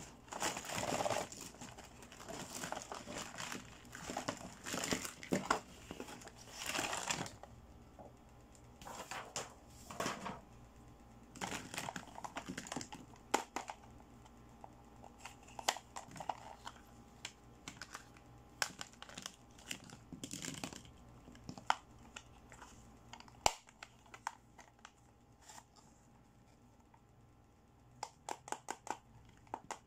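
Crinkling and crackling of a toy playset's plastic packaging being handled for about the first seven seconds. After that come scattered sharp clicks and taps of small hard-plastic toy pieces, among them a miniature plastic toy suitcase, with a quick run of clicks near the end.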